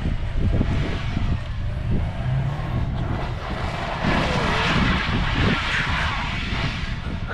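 Wind buffeting the microphone in a steady low rumble, with a louder hissing rush from about four to six seconds in.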